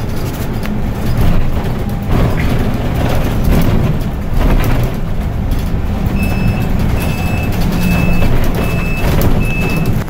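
Wind and road noise of a motorcycle riding in city traffic, a loud low rush of wind on the microphone. About six seconds in, a series of short, high electronic beeps begins, repeating a little under twice a second.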